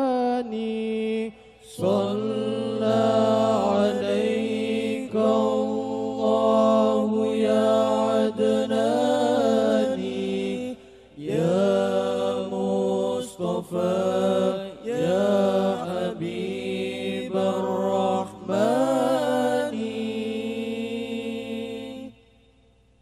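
Male voices of a Banjari group singing a sholawat together into microphones, in long, ornamented held notes that slide between pitches, with no steady drumbeat. The singing stops about a second before the end.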